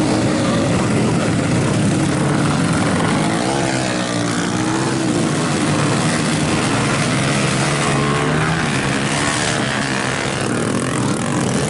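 Several small motorcycle engines revving hard as the bikes push through deep mud, their pitch rising and falling as the riders work the throttle.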